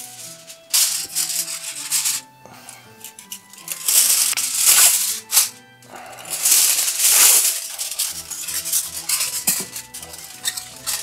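Aluminium foil pulled from its box, torn and crinkled in several noisy bursts as it is folded around food, over background music.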